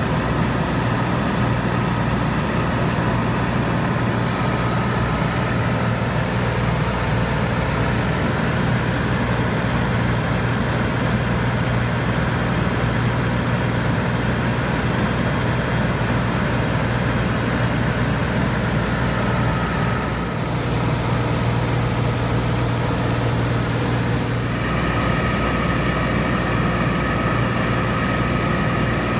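Cessna 182's piston engine and propeller running steadily in flight, heard from inside the cabin, with a slight change in tone about 25 seconds in.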